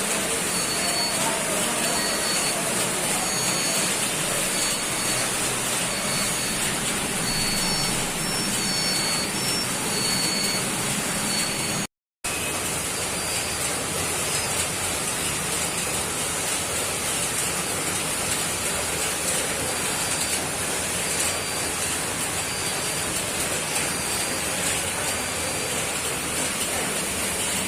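Ducted split air conditioner's indoor blower running, a steady rushing hiss of moving air. Faint short high-pitched peeps come and go over it.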